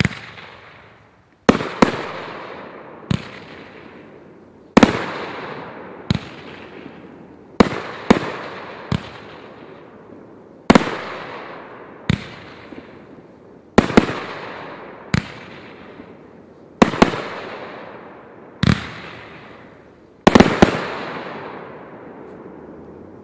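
Pyro Demon Fireworks 'Witching Hour' 500-gram firework cake firing. Sharp bangs come every one to two seconds, some in quick pairs, each followed by a crackle that fades away. A quick cluster of three bangs comes near the end.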